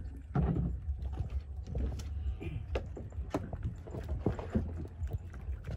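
Irregular light knocks and slaps in a small boat as a pile of freshly caught fish is handled, over a low steady rumble.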